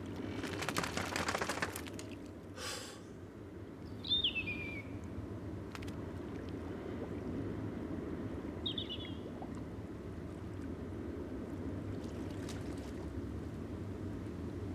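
Steady, low wash of sea and wind ambience, with a brief rush of noise about a second in. Two short bird cries come over it: a descending one about four seconds in, the loudest sound, and a shorter one near nine seconds.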